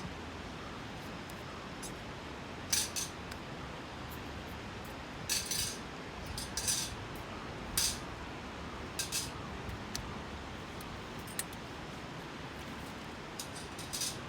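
Several short, crisp clicks and scrapes of small gear being handled, scattered irregularly over a steady background hiss.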